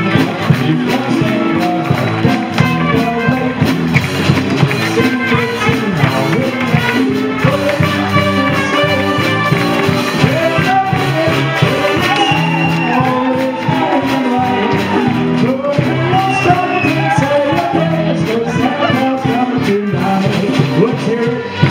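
Loud music with singing, playing without a break.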